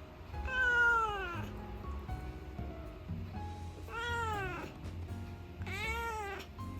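A domestic cat meowing three times. The first and loudest meow falls in pitch; the other two rise and then fall.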